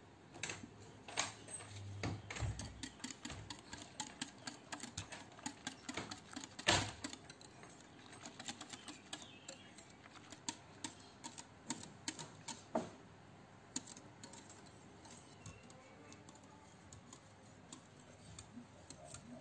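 Wire whisk beating a creamy milk mixture in a glass bowl, its wires tapping and clicking against the glass in quick irregular strokes that thin out in the last few seconds.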